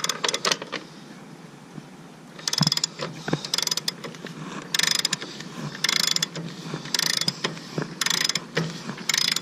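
Ratchet wrench clicking in short repeated strokes, about one a second from roughly two and a half seconds in, as a motorcycle's rear axle is adjusted to set chain tension.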